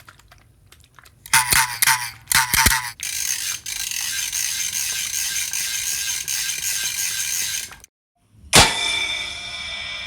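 A string of homemade comedy sound effects. First come two rattling, ratchet-like clicking bursts, then a steady hiss for several seconds. It cuts off abruptly, and after a brief silence comes a sudden struck hit that rings on with many tones and slowly fades.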